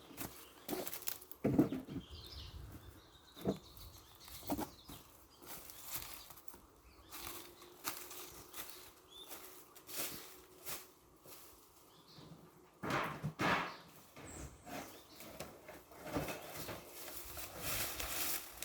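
Scattered knocks and rustling from objects being handled and shifted around, with a louder stretch of rustling about two-thirds of the way through and again near the end; a faint steady hum comes in for a few seconds in the middle.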